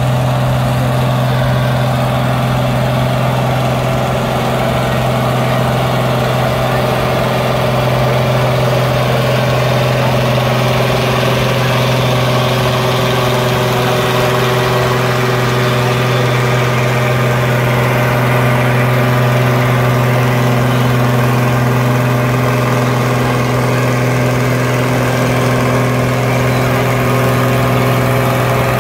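International 856 tractor engine running hard and steady under heavy load as it pulls a weight-transfer sled, its pitch holding even.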